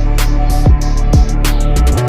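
Dark trap instrumental: deep 808 kick drums that drop in pitch, about two a second, over a sustained bass, with sharp snare and hi-hat hits on top.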